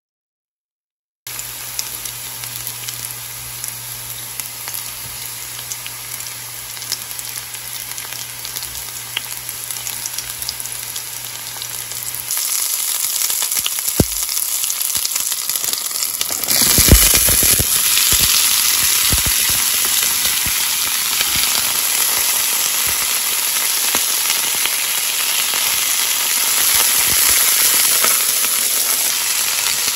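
Green onion, garlic, bell pepper and snap peas frying in oil in a nonstick pan: a steady sizzle that starts about a second in and grows louder twice, about twelve and again about seventeen seconds in. A spatula stirs the vegetables near the end.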